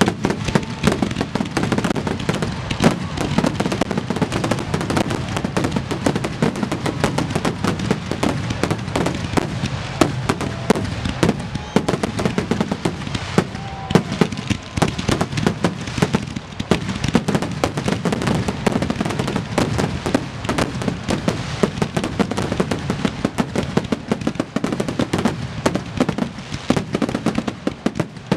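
Fireworks finale barrage: aerial shells bursting in rapid, overlapping succession, many sharp reports a second with no let-up.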